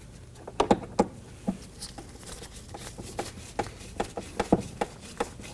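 Phillips screwdriver snugging down screws into a plastic door panel: a run of irregular sharp clicks and taps, loudest about half a second to a second in and again about four and a half seconds in.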